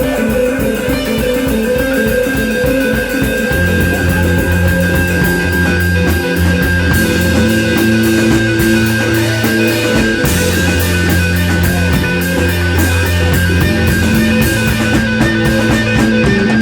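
Live rock band playing: electric guitars holding sustained notes over a steady drum beat, with a heavy bass line coming in about three and a half seconds in.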